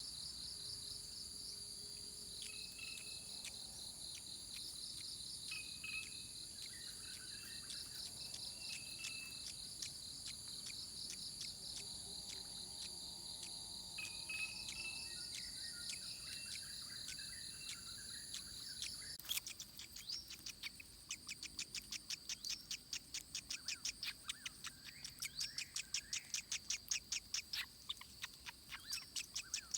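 Forest ambience: a steady high insect drone with various birds whistling and calling over it. About two-thirds of the way in the drone cuts off abruptly, and a fast, even pulsing chirp of about four pulses a second takes over, growing louder.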